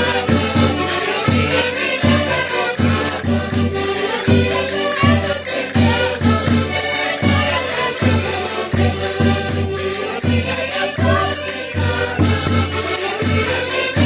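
Several Portuguese diatonic button accordions (concertinas) playing a lively folk dance tune, a vira, together, with a steady pulsing bass beat, a cavaquinho strumming along and voices singing over them.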